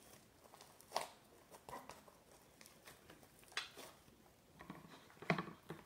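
Fluffy slime being kneaded and pulled by hand: faint, scattered squishes and sticky clicks, about half a dozen in all.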